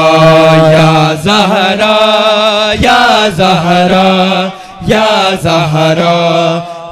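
Men's chorus chanting a noha (Shia lament) in unison, holding long notes with a wavering pitch and breaking off briefly about two-thirds of the way through. A few sharp strikes from hands beating the chest (matam) sound through it.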